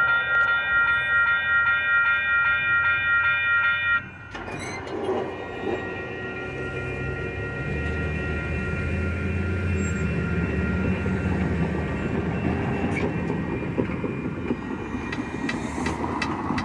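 Railroad grade-crossing warning bell ringing in a fast, even pulse, cutting off abruptly about four seconds in, as the crossing gates go up. A low, steady rumble follows and swells through the middle.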